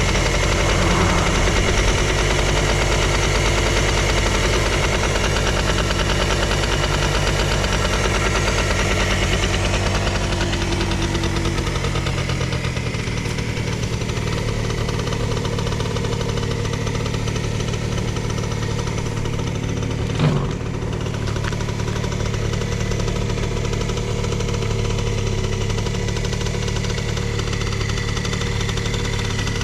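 Engine of a vintage Suzuki Hi scooter idling steadily. Its pitch settles a little lower about twelve seconds in, and there is a single short click about two-thirds of the way through. The seller presents the idle as free of abnormal noises.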